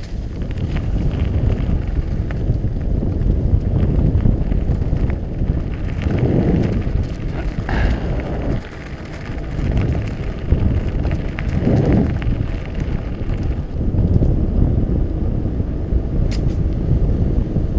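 Wind rumbling on a GoPro's microphone as a mountain bike rides along a gravel path, with tyre crunch and small rattles from the bike. The wind surges twice, about six and twelve seconds in.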